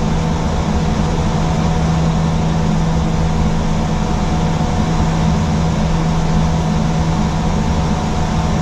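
Steady flight-deck noise inside an Airbus A320: a constant rush of engine and airflow noise with a strong low hum and fainter higher steady tones.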